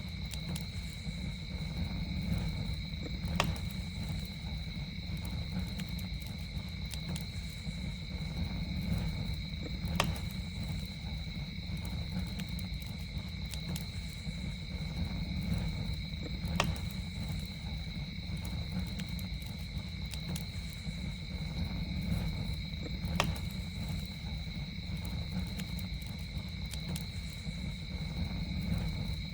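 Campfire burning with a steady low rumble and occasional sharp pops, about four loud ones spaced several seconds apart among fainter crackles. Over it runs a continuous high trill of insects, like crickets, held on two steady pitches.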